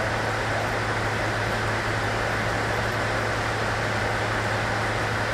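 Steady running noise inside a train car: a constant low hum under an even rushing sound, without change.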